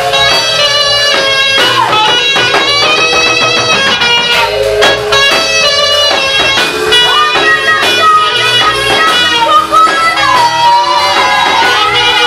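Gospel music playing: sustained chords under a melody line that slides up and down in pitch.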